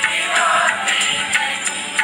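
Instrumental backing music of a Hindi devotional song (bhajan) playing between sung lines, with no voice over it.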